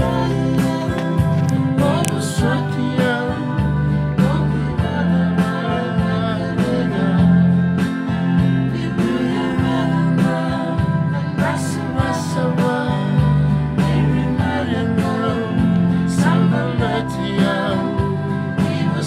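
A Fijian gospel song played on an electronic keyboard, with steady bass notes, and a strummed acoustic guitar, with a voice singing along.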